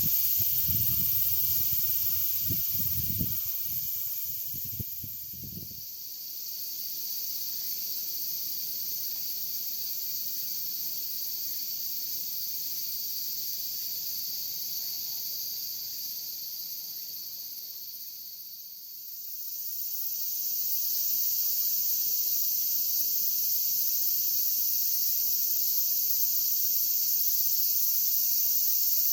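Steady high-pitched drone of a summer insect chorus, with low rumbling bumps like wind or handling on the microphone in the first few seconds. The chorus dips twice, a few seconds in and near the middle, and swells back.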